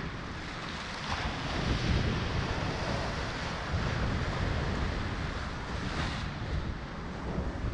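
Ocean surf breaking and washing over shore rocks, swelling louder about a second in, with wind buffeting the microphone.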